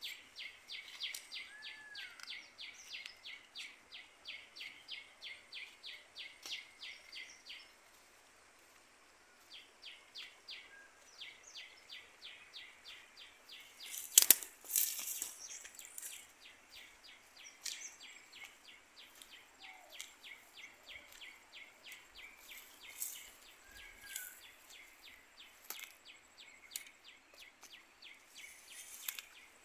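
A rapid, even chirping call, about four chirps a second, repeating on and on and stopping for a moment about a quarter of the way through. About halfway through there is a brief loud rustle.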